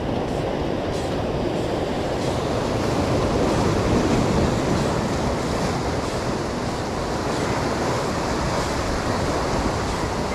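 Ocean surf washing in and breaking over the rocks, a steady roar of moving water that swells a little about four seconds in.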